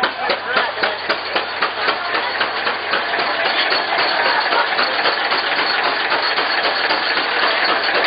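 Antique stationary gas engine running with a regular knock about three times a second, driving a belt-driven apple grinder. About three seconds in, the knocks blur into a steadier clatter.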